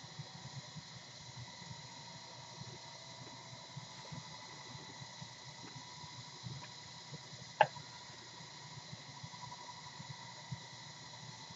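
Quiet steady hiss of room tone with faint scattered taps from small handling noises, and one sharp click about seven and a half seconds in.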